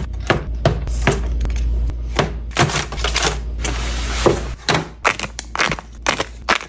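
Snacks and containers being handled and set into a drawer: a run of irregular clicks and taps, with a stretch of rustling a little before the middle. A low hum underneath stops about two-thirds of the way through.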